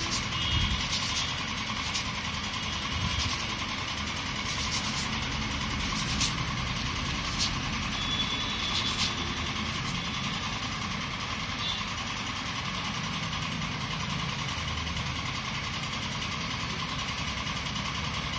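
Steady rumble of road traffic and engines running, with brief hissing strokes of a foam cube rubbed on sandpaper through about the first half.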